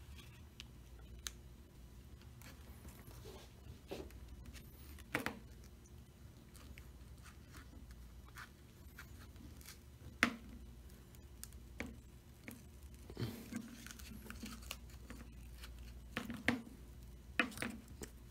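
Folded business cards being slid and worked along the adhesive seam of a phone's glass back cover, giving scattered soft scrapes, rustles and small clicks of card and glass being handled. A low steady hum runs underneath.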